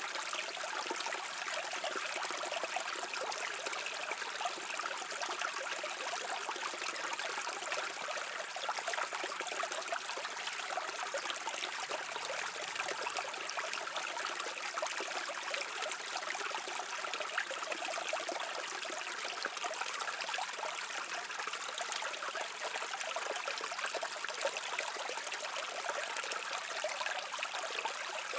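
Stream water flowing and trickling in a steady, even babble.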